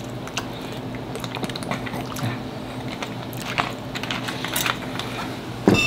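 Close-miked eating sounds: chewing and wet mouth noises with scattered soft clicks, over a steady low hum.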